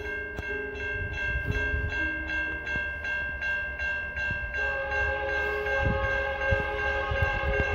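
Approaching Canadian National freight train led by EMD SD60 diesel locomotives, its air horn sounding a steady multi-note chord throughout. The lower notes of the chord change about four and a half seconds in.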